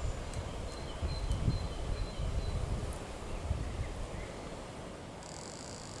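Forest ambience: faint, short, high whistles of distant birdsong over an uneven low rumble, with a brief high buzzy trill near the end.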